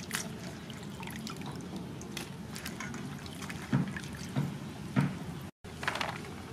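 Leeks being washed by hand in a stainless steel bowl of water: water sloshing and dripping, with three louder splashes about two-thirds of a second apart in the second half.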